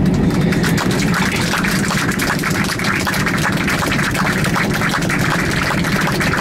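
Airbus A320 cabin noise while taxiing after landing: a steady low hum of the idling engines and airflow, with constant fine rattling and clicks from the cabin and wheels.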